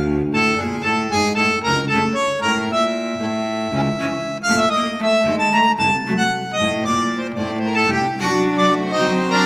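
Instrumental tango music with no singing.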